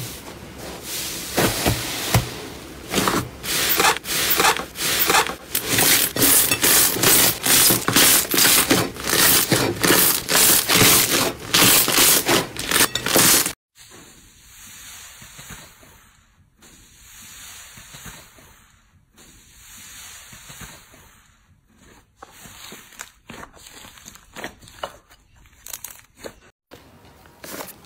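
Hands pressing and squishing a large mound of yellow slime, loud repeated squishy strokes about twice a second. About halfway through it cuts to quieter, irregular squishing of a thick pink slime being pressed and kneaded.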